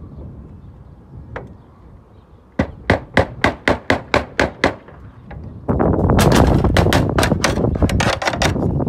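Slater's hammer tapping a nail home through a round-cut roofing slate: a quick run of about ten sharp taps, then a louder, denser run of knocks over a noisy wash from about halfway through.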